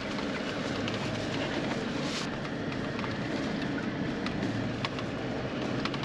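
Car driving slowly along an unpaved forest road: steady engine and tyre noise with scattered small clicks and knocks.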